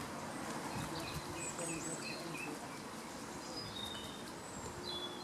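Small birds chirping in short, high notes over a steady wash of outdoor noise, with water stirring as a person wades and moves a net through a pond.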